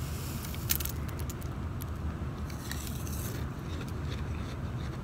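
Metal spoon scraping and scooping through crunchy shaved ice in a glass bowl, with gritty scratching and scattered sharp clicks, one louder click about a second in.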